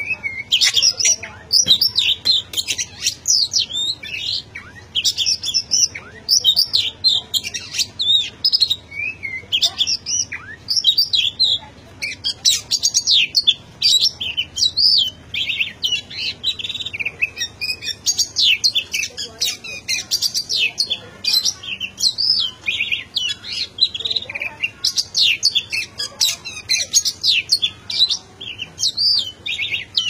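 Oriental magpie-robin (kacer) singing without pause: a fast, unbroken run of varied high phrases with only the briefest gaps.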